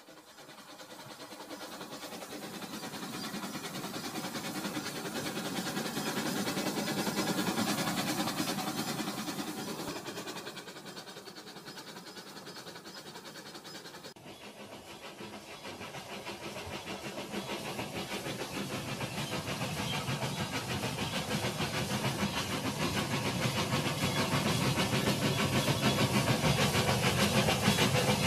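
Battery-powered toy steam train running on plastic track: a steady mechanical rattle of motor and wheels with a hissing steam sound effect. It swells and fades over the first half, then grows steadily louder as the train approaches.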